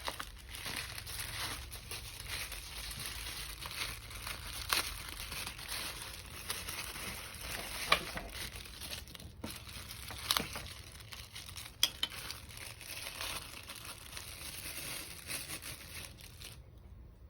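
Packaging crinkling steadily as it is handled and unwrapped, with a few sharp clicks along the way. It stops abruptly shortly before the end.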